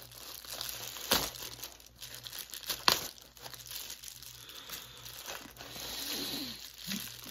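Shipping package being handled and opened: packaging crinkling and tearing, with a couple of sharp snaps about a second and three seconds in.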